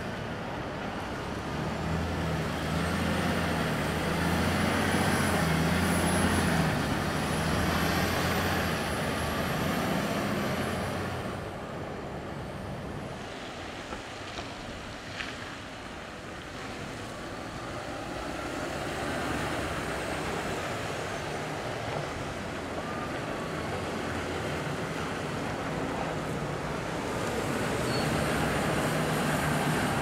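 Heavy diesel dump trucks loaded with crushed concrete pulling away and driving past, their engines working under load with the engine note stepping in pitch. The engine sound is loudest in the first third, fades mid-way, then builds again as the next truck comes by near the end, with a faint high whine rising and falling above it.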